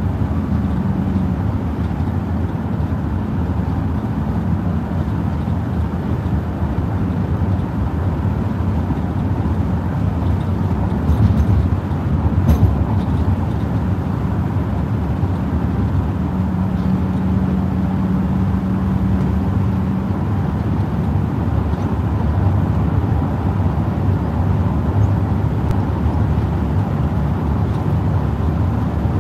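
Steady road noise inside a car at highway speed on wet pavement: the low rumble of tyres and engine. A low hum swells for a few seconds in the second half, and a few brief louder knocks come about halfway through.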